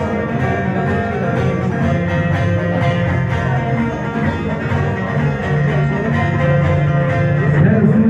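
Bağlama (long-necked Turkish saz) playing a plucked instrumental interlude of a semah tune, the melody running on without singing.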